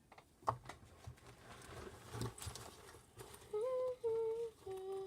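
A few light clicks and rustles of handling, then a girl humming a short tune in held notes that step up and down, starting about three and a half seconds in.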